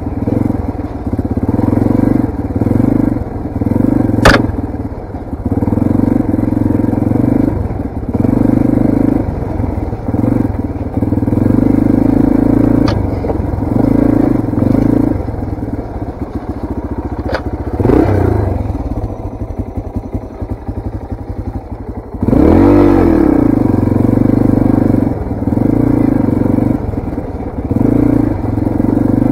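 Yamaha TT-R230 dirt bike's single-cylinder four-stroke engine running as it is ridden, revving up and down with the throttle. It eases off for a few seconds past the middle, then revs up sharply. A sharp knock about four seconds in.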